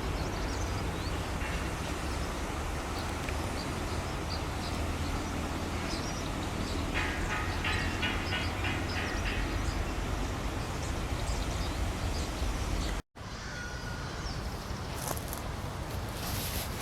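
Wind buffeting the microphone in a steady low rumble, with small birds chirping over it, including a run of quick repeated notes about halfway through. The sound cuts out for an instant about three-quarters of the way in, then carries on a little quieter.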